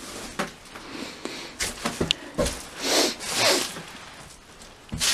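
Footsteps and rustling over a rotting, debris-strewn wooden floor, with a few short knocks and a brief squeak about two seconds in, and swells of rubbing noise around the middle.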